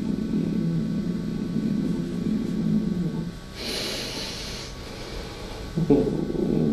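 A man's heavy breath out, a hissing exhale about halfway through, following a low, rumbling murmur. Low brass music comes in near the end.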